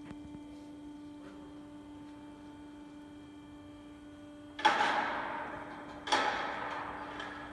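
A steady machine hum at one pitch. Over it come two loud bangs about a second and a half apart, each ringing out for about a second.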